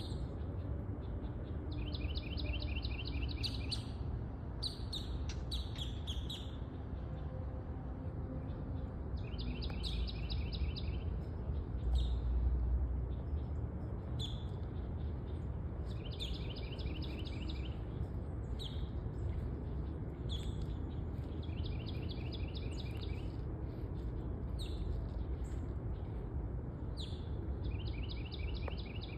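A songbird repeatedly sings a short, rapid trill of quickly repeated notes, about five times, with other brief chirps between, over a steady low background rumble that swells briefly about halfway through.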